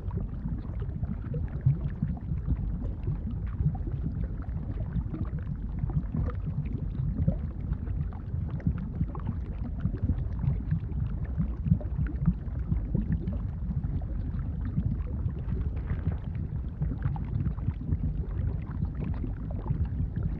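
Bubbling lava sound effect: a deep, continuous rumble with many thick bubbles popping throughout.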